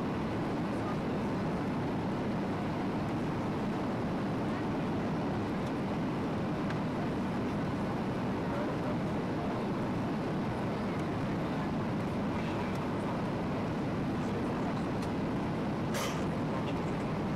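Steady cabin noise of a Boeing 737-800 in flight: the even rush of airflow and its CFM56 jet engines heard from inside the cabin, with a short click near the end.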